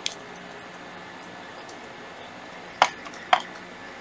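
Three short, sharp handling clicks and knocks from hands working with a hard plastic cordless impact driver and small items beside it. One comes just after the start and two come near the end, about half a second apart, over a faint steady hiss.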